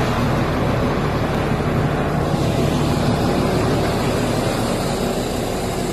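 Large coach bus engine running close by: a steady, loud drone with a low hum under it.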